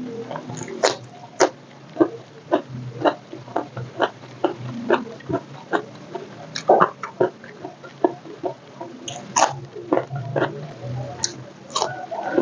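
Close-up chewing of crunchy food, crispy fried egg and krupuk crackers: sharp, irregular crunches about two a second, with wet mouth sounds between them.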